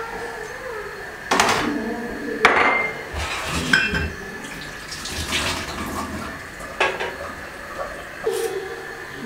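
Kitchen sink sounds: a tap runs briefly while metal bowls and utensils clatter and clink, with several sharp knocks, some ringing.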